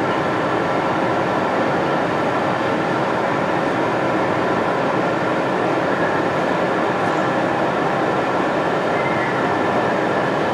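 Steady, loud rushing machine noise with a faint high hum, unchanging throughout.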